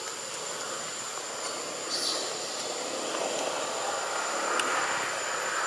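Steady outdoor background noise: an even hiss with a thin, high, steady whine held above it, and no clear animal calls.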